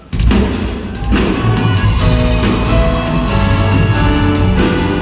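Live band playing a ballad in a concert hall: the full band, drums included, comes in loudly just after the start, following a quiet passage, and plays on at full volume without vocals.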